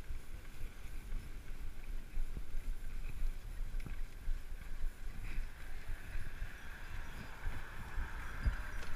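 Wind buffeting the microphone of a camera on a moving tandem bicycle: an uneven low rumble with a few light knocks from the ride.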